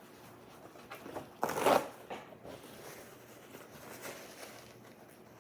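Paper towel being torn off a roll: a short ripping rasp about one and a half seconds in, with a few smaller rustles and clicks around it.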